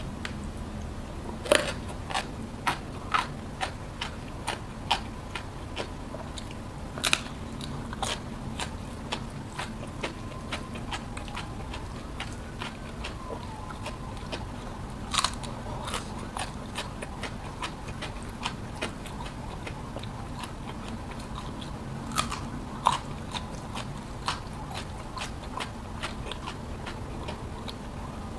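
A person eating close to the microphone: crisp crunching bites and chewing of crunchy food, in clusters of sharp crunches with quieter stretches of chewing between. The loudest crunch is about a second and a half in.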